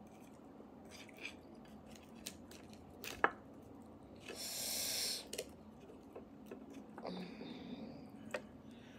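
Chopstick clicking and scraping against a roasted beef marrow bone, with one sharp click about three seconds in. A bit past four seconds, about a second of airy mouth noise as she works at the hot marrow, and a fainter rustle near the end.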